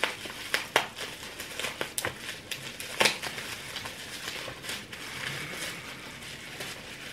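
Plastic bubble wrap crinkling and rustling as hands unwrap a glass bottle from it, with sharp crackles, the loudest about three seconds in.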